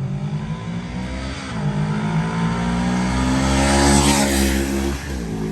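Small gasoline engine on lawn or landscaping equipment running steadily. Its pitch dips briefly twice, as under load.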